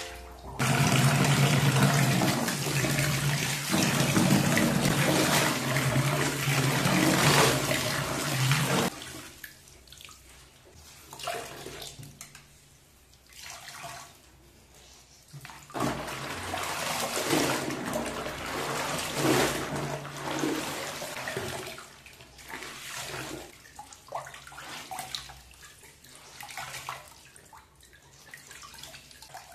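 Water rushing steadily for about the first nine seconds, then intermittent splashing and sloshing as wet clothes are scrubbed, squeezed and wrung by hand in a plastic tub of soapy water.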